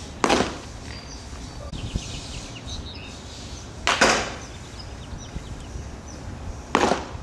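Pitched baseballs hitting a catcher's mitt with a sharp leather pop, once just after the start and again near the end. A similar sharp smack comes midway between them.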